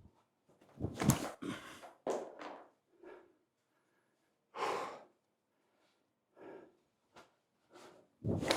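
A person's short, forceful breaths and exhales, heard as separate bursts with silence between them. The loudest come about a second in and again near the end.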